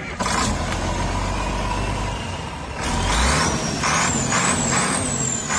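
An old bulldozer's diesel engine starts up abruptly and runs loudly. About three seconds in, a high whine rises and then holds, wavering slightly.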